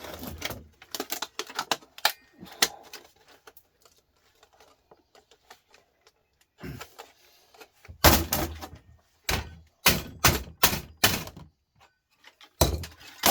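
Hand tools knocking and banging on a desktop computer power supply's casing as it is forced apart. Scattered clattering knocks come first, then after a pause a run of heavy blows.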